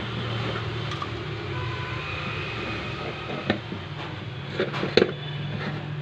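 A few light clicks and taps as hands work a sealing compound around the buffer seat of a plastic washing machine tub, the sharpest about five seconds in, over a steady low hum.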